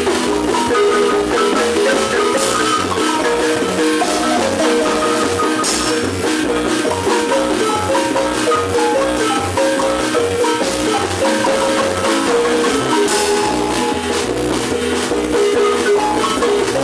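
Live Guatemalan marimba ensemble playing dance music: fast repeated mallet notes on wooden bars carry the melody over a low bass line, with a few cymbal-like crashes from the accompanying drum set.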